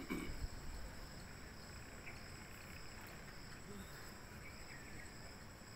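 Faint, steady high-pitched drone of insects such as crickets, with a few short faint chirps scattered through it.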